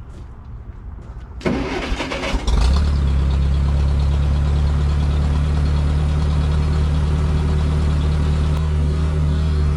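Case Construction King 530's engine cranked over by the starter about a second and a half in, catching about a second later and settling into a steady idle.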